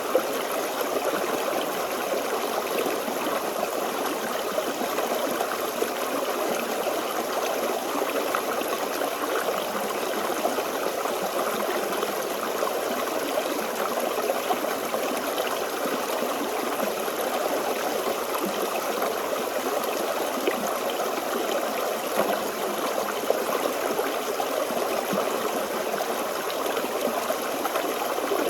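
Forest stream flowing over stones: a steady babbling rush of water with small splashes and trickles.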